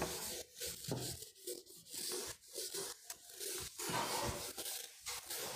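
Irregular scratchy rubbing strokes, about seven of them, with short breaks in between.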